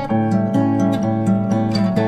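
Acoustic guitar played on its own, a run of changing chords picked or strummed in a steady rhythm, with no singing over it.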